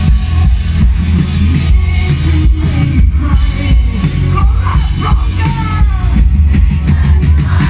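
Rock band playing live through a PA system, loud and steady, with heavy bass and drum hits. Pitched melody lines come in over it in the middle.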